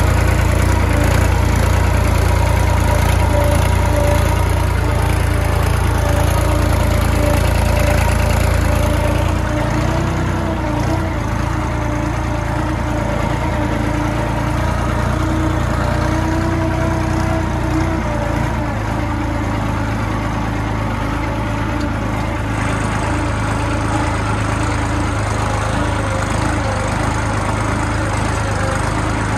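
Farmtrac diesel tractor engine running steadily under load, heard close from the driver's seat while it drags a plank leveller through loose soil. The deep low rumble eases a little about nine seconds in.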